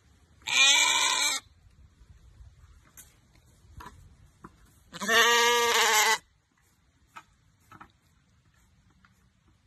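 A sheep bleating twice: a short bleat under a second long, then a longer one lasting about a second and a little lower in pitch.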